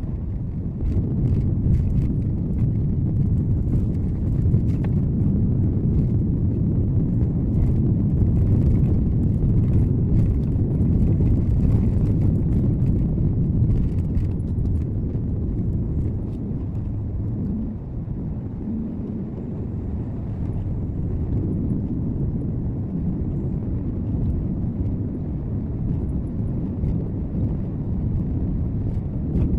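Car driving, as picked up by a dashcam inside the cabin: a steady low rumble of engine and tyre noise on the road, easing slightly about eighteen seconds in, with faint scattered ticks.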